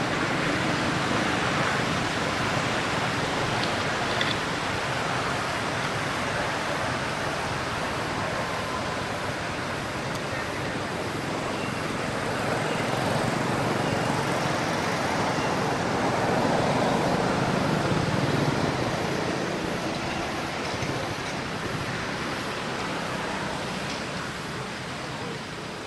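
Steady road-traffic noise that swells about halfway through and again a few seconds later, as vehicles pass.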